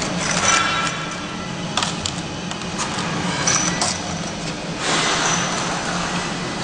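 Sticker labeling machine running: a steady motor hum with scattered clicks and metallic clinks from the mechanism and the items passing through, and two short rushes of noise, about half a second in and near five seconds.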